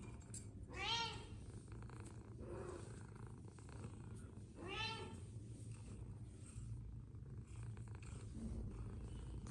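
Domestic cat purring steadily close by, with two short meows, one about a second in and one about five seconds in.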